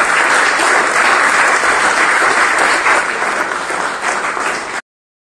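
Audience applauding steadily, easing slightly toward the end before cutting off abruptly.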